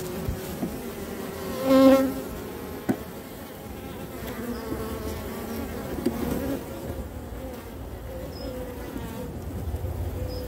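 Honeybees buzzing steadily around an opened queen cage on the hive. About two seconds in, one buzz swells loud and high for a moment, and a small click follows about a second later.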